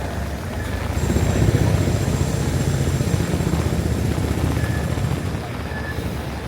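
A deep engine rumble swells about a second in, holds for a few seconds and eases off near the end, over steady street traffic noise.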